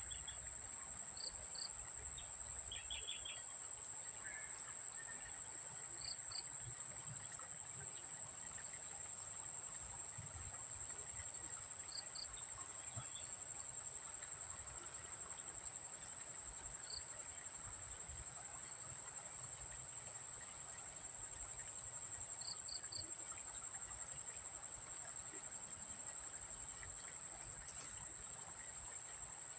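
Steady, high-pitched trilling of crickets or other insects, with a short double chirp every five or six seconds and a few brief chirps in the first seconds.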